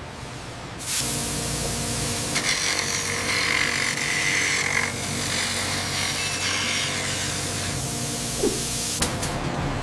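Abrasive grinding wheel grinding a steel crankshaft journal: a steady, hissing grind that starts suddenly about a second in, turns shriller for a couple of seconds, and stops about nine seconds in.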